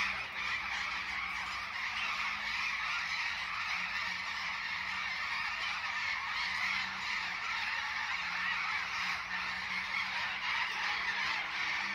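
Dawn chorus of many birds calling together, a dense, steady mass of overlapping calls with no break.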